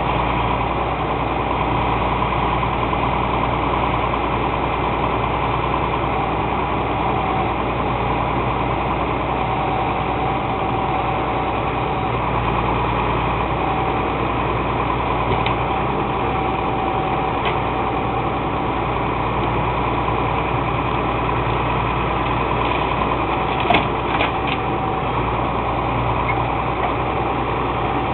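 Truck engine running steadily, powering the hydraulic machinery that is pulling apart a junked van, with a couple of sharp metal knocks near the end.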